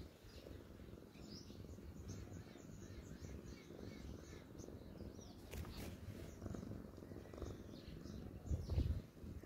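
Domestic cat purring in a low, steady rumble, with small birds chirping in the background. A sharp click comes a little past halfway, and a few low thumps near the end.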